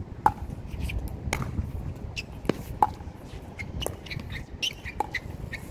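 Pickleball paddles striking the hollow plastic ball in a rally, a sharp pock about once a second.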